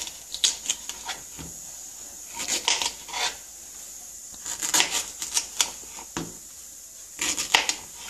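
Kitchen knife cutting unpeeled raw green plantains into chunks on a wooden chopping board: short groups of knocks as the blade goes through and meets the board, every second or two.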